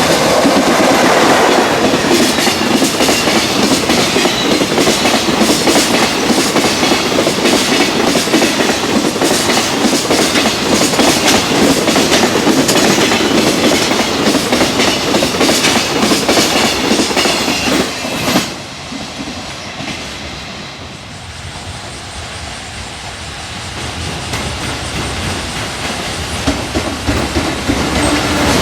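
Long freight train passing close by, its wagons clattering over the rail joints in a dense run of clicks. About two-thirds of the way in the last wagon goes by and the sound drops off suddenly to a quieter rumble, which swells again near the end.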